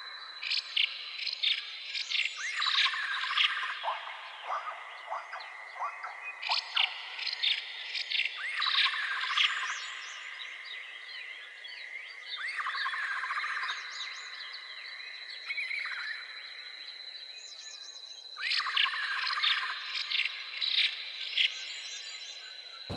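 Natural animal chorus: clusters of chirping calls come in repeatedly every few seconds over a steady high-pitched whine, like insects or birds in a wild soundscape.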